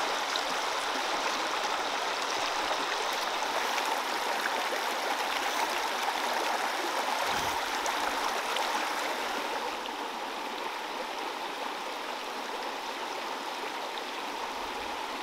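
Shallow mountain trout stream running over rocks and small cascades: a steady rushing of water, a little quieter about two-thirds of the way through.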